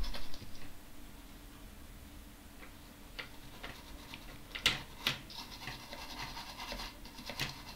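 A small tool or brush scratching and scrubbing at battery-leak corrosion on a circuit board, with a few sharp ticks and scrapes, over a steady low hum.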